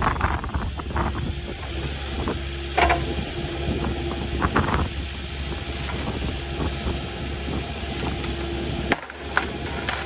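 Kubota KX080-4 excavator's diesel engine running steadily under hydraulic load as the boom lifts and the grapple reaches into a tree, with a steady hum and a whine. Short metallic squeaks come from the boom and attachment near the start, about three seconds in and about four and a half seconds in.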